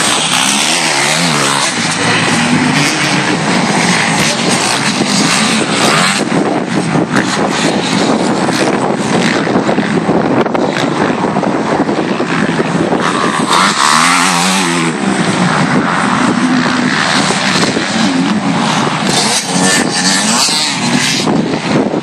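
Motocross bikes racing on a dirt track, their engines revving up and down as riders pass, with one pass close by about 14 seconds in.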